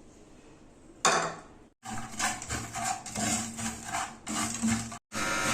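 A spoon stirring and scraping against a pan holding sugar, black pepper and turmeric in a little water, in quick repeated strokes of about three a second. The sugar is being worked until it dissolves.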